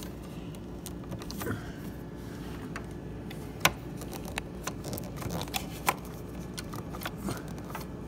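A wire harness and plastic parts being handled and pulled from under a refrigerator door: rustling and scraping with a few sharp clicks, the loudest about three and a half seconds in, over a low steady hum.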